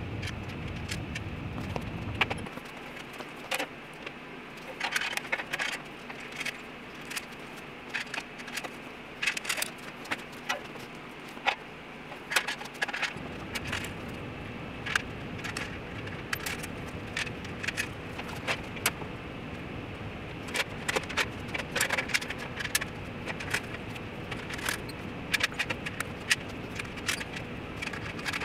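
Metal parts and hand tools clinking and clattering irregularly as they are handled during assembly, over a steady background hum.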